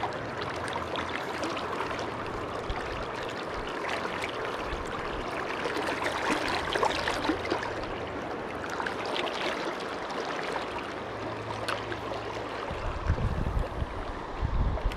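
Shallow river current rippling and gurgling steadily around a wading angler's legs, with a few low rumbling bumps near the end.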